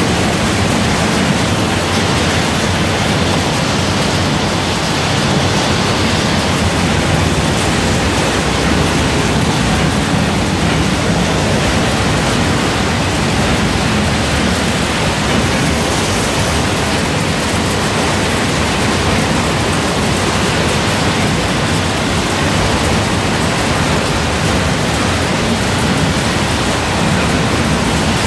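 Almond cracking, sieving and shell-separating machinery running: a loud, steady, dense noise with no distinct rhythm or pitch.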